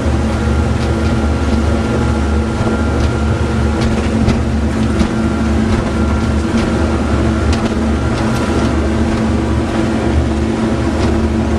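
Motorboat engine running steadily as the boat cruises at sea, a constant low drone with water rushing past the hull and scattered light knocks.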